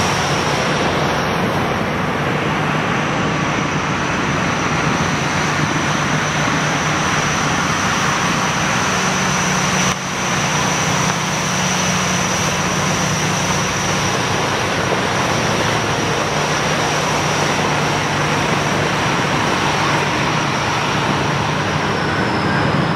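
Ultra-class mining haul truck running as it drives past, a steady heavy engine rumble with a thin high-pitched whine over it.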